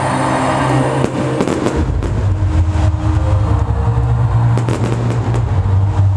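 Loud bass-heavy electronic dance music from a stadium sound system, with a deep held bass and sustained chords, picked up on a camera microphone. Irregular sharp pops of stage pyrotechnics go off over it.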